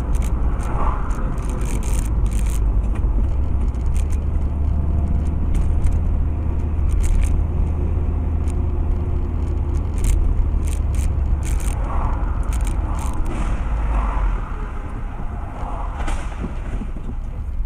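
Car driving in city traffic, heard from inside the cabin: a steady low engine and road rumble with scattered sharp clicks. The rumble drops off about fourteen seconds in.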